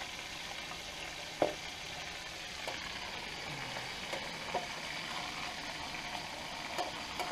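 Ribeye steak frying in hot oil in a skillet, a steady sizzle, with one sharp click of a utensil about one and a half seconds in and a few light ticks after.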